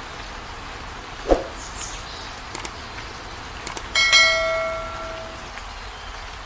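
Subscribe-animation sound effects: a whoosh about a second in, a couple of mouse clicks, then a bright notification-bell ding that rings out for about a second, over a steady hiss.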